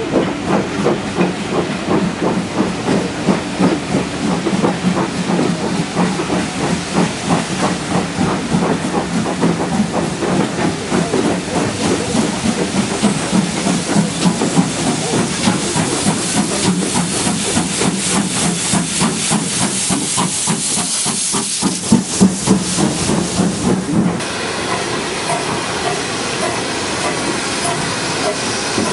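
Steam locomotive working, with rhythmic exhaust beats over a steady hiss of steam, loudest just before the sound changes abruptly about 24 seconds in to a steadier steam hiss.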